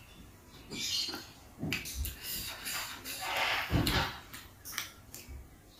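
Close-miked eating sounds: fingers squishing and scooping cooked rice on a banana leaf, with irregular soft taps and rustles and a louder squelchy swell about three to four seconds in.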